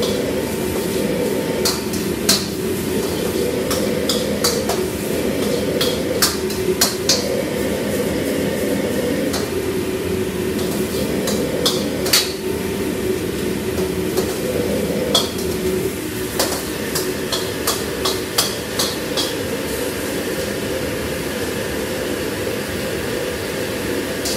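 Noodles being stir-fried in a wok: a metal utensil clanks against the wok at irregular intervals over the steady rush of a gas wok burner. The clanks thin out in the last few seconds.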